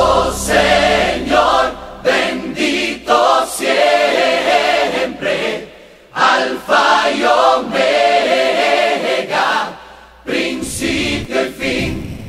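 A group of voices singing a Christian worship song, in phrases of a second or two, with short breaks about six and ten seconds in.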